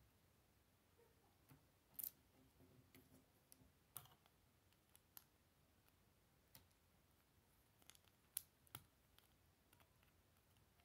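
Lego plastic bricks and plates clicking as they are pressed together and handled, about eight short scattered clicks with the sharpest around two seconds in and near eight seconds.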